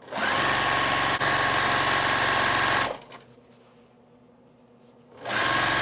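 Juki TL-18 QVP Haruka sewing machine stitching at a steady speed with a steady whine for about three seconds, stopping, then starting again about two seconds later.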